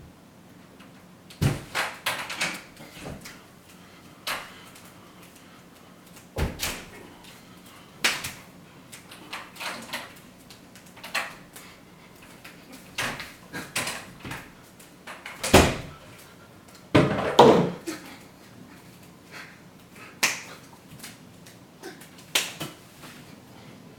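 Irregular knocks, taps and clicks from inside a wall, a few of them heavier thumps and one short rattling run of taps, coming at uneven gaps with no steady rhythm.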